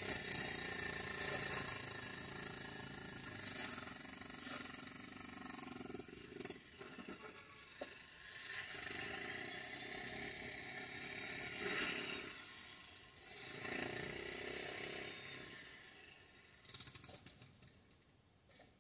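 Roadworks heard from inside a car: a hand-held jackhammer rattling in spells, with sharp strikes of tools on rubble, dying away near the end.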